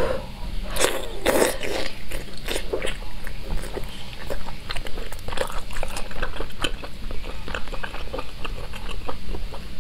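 Close-miked wet eating sounds: braised pork and glass noodles sucked in and chewed, with a few loud slurps about a second in, then a steady run of small sticky chewing and lip-smacking clicks.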